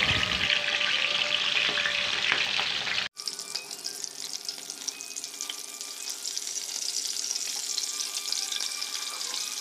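Stuffed green bell peppers sizzling and crackling as they shallow-fry in oil in a kadhai, while a spatula turns them. About three seconds in the sizzle cuts off for an instant and continues at a quieter level.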